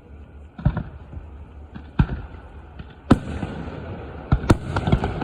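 Fireworks display: aerial shells bursting in a string of sharp booms, about six in all, the loudest about three seconds in and followed by a faint hissing crackle.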